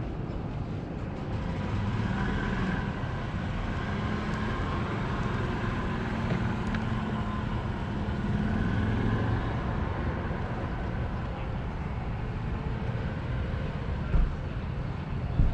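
A steady engine or machinery drone with faint wavering tones, like a vehicle or ground equipment running on the ramp. Two short knocks, one near the end and one right at the end, stand out above it.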